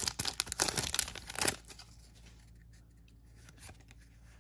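Foil wrapper of a Magic: The Gathering booster pack torn open and crinkled by hand: a crackly tearing for about a second and a half, then only faint rustles.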